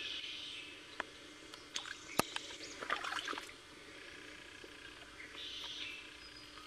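Wild birds singing in repeated phrases, with a few sharp knocks and a short clatter in the middle, the loudest knock about two seconds in.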